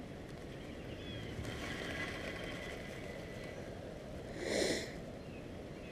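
Steady outdoor wind and water noise at a creek dam, with one short, louder rush of breath-like noise about four and a half seconds in.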